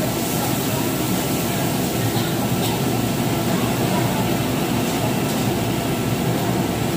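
Steady, unbroken restaurant din: a continuous rushing noise typical of a table-grill exhaust fan, with faint background chatter.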